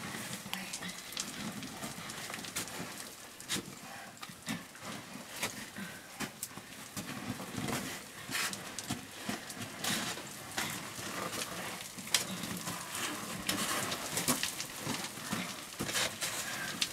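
Cavers scrambling through a low rock passage: irregular knocks, clatter and scraping of boots, knees and gear on loose stones and rock.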